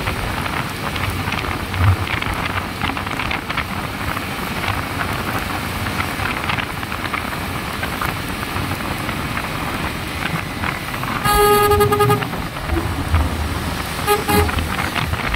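Steady rush of wind and tyre noise from a motorcycle riding on a wet road. A horn toots for about a second near the end, then once more briefly a couple of seconds later.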